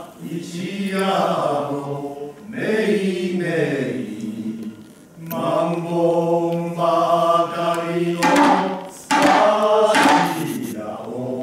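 Goten manzai chanting: voices sing long, drawn-out sung phrases with slow pitch glides and brief breaths between them. A few sharp taps come near the end.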